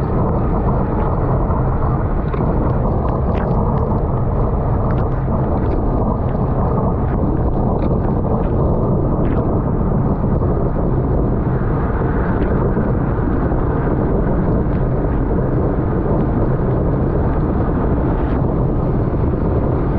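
Loud, steady wind rushing over the microphone of a camera riding along in a road bike race at speed, with tyre and road rumble beneath it and a few light clicks.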